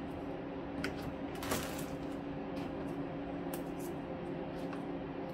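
Small plastic net pots being set into the holes of a plastic tote lid: scattered light clicks and taps, with a short clatter about a second and a half in the loudest, over a steady low hum.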